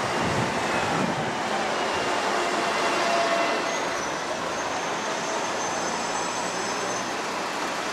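City buses moving at a bus stop amid street traffic: a steady mix of diesel engine noise and road hiss. Faint high-pitched whines come in about four seconds in and last a few seconds.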